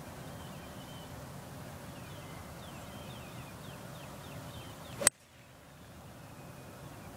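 A golf club striking the ball on a full swing: a single sharp crack about five seconds in, over quiet open-air ambience with faint high chirps.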